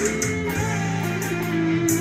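Electric guitar played through a Cornell 108 fuzz pedal, improvising in D minor: held, sustaining notes, with a new note taking over about half a second in and a higher note held near the end.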